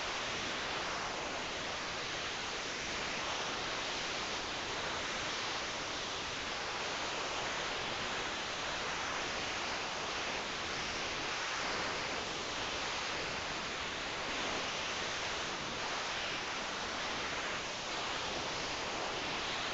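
Steady, even hiss with no distinct events or rhythm.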